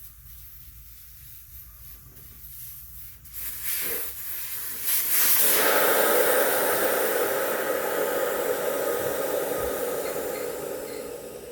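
Air hissing out of a motorcycle's front tire through the valve stem with the valve core removed. It builds about four seconds in, is loud at first, then slowly fades as the tire deflates.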